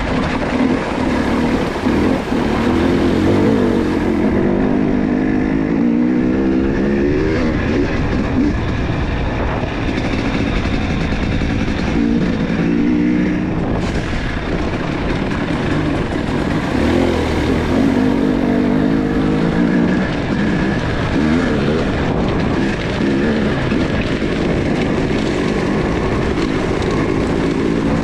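Dirt bike engine running under way on a gravel track, its pitch rising and falling again and again with throttle and gear changes, over a steady rush of wind and tyre noise.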